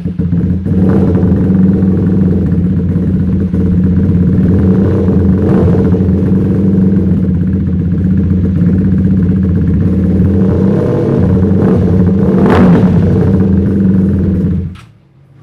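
Honda CBR150R's single-cylinder engine running through a newly fitted aftermarket double-silencer racing exhaust, mostly at a steady idle, in an enclosed room. The sound cuts off suddenly near the end.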